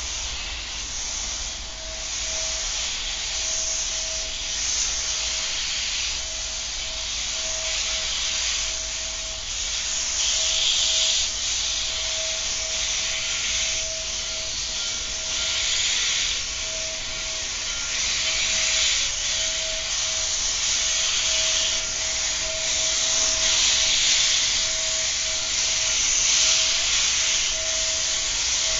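Norfolk & Western 611, a 4-8-4 steam locomotive, approaching slowly with its cylinder cocks open: steam hisses out in blasts that swell every couple of seconds, with a thin steady tone underneath.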